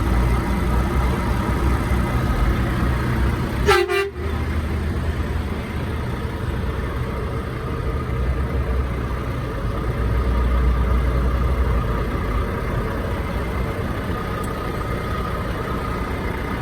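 Truck horn held down in one long, steady blast over the low rumble of a running engine, with a brief break about four seconds in.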